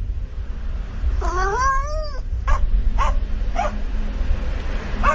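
A cat meowing: one long call, about a second long, that rises and falls, then several short, sharp calls. A steady low rumble runs underneath.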